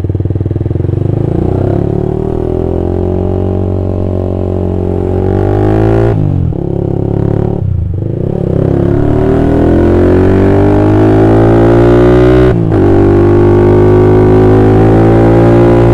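Honda CB150R motorcycle's single-cylinder engine through an aftermarket BPro Racing 26 cm silencer, accelerating under load. Its pitch climbs steadily and drops briefly at gear changes about six, eight and twelve and a half seconds in.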